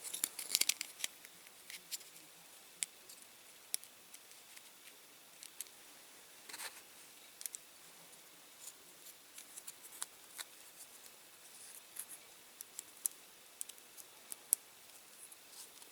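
Light, sharp clicks and taps at irregular intervals, with a short scrape about six and a half seconds in: small parts of a diecast toy car being handled and pressed into place during reassembly.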